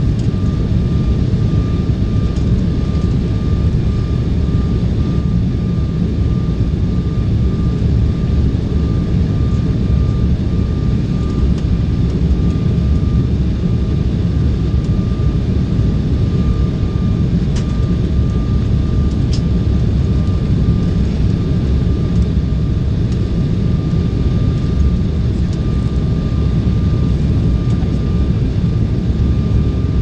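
Cabin noise of an Embraer 190 in flight, heard from a seat by the wing: a loud, steady, deep rumble of its turbofan engines and rushing air, with a faint thin steady whine above it.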